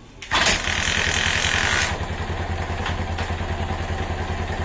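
Bajaj Pulsar motorcycle engine being started: about a second and a half of loud starting noise, after which it settles into a steady idle. This comes just after its self-starter motor and pinion have been lubricated to cure a starter noise.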